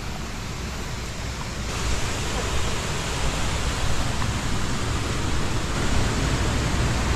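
Steady rush of flowing water from a stream and waterfall, which gets louder and brighter about two seconds in.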